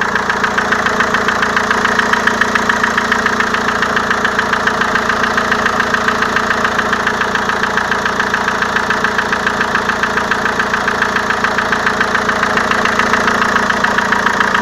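Renault Velsatis 2.2 dCi (G9T) four-cylinder diesel idling cold, with the hydraulic valve lifters knocking hard: a rapid, even clatter over the engine's steady running.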